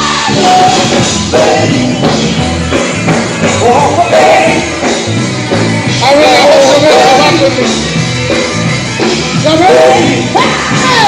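Gospel music: a vocal group singing with a band, over a steady bass line.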